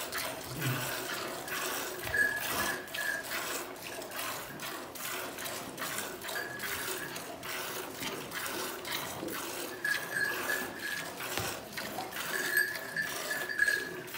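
A cow being milked by hand: rhythmic squirts of milk hiss and splash into a steel pail that already holds foamy milk. A thin high tone comes and goes in the background a few times.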